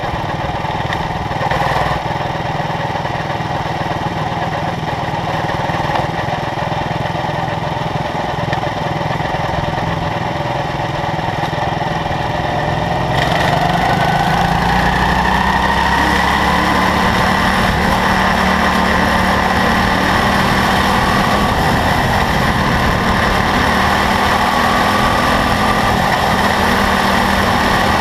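Quarter midget race car's small single-cylinder engine heard from on board, running steadily at low speed; about halfway through it gets louder and its pitch climbs slowly as the car picks up speed.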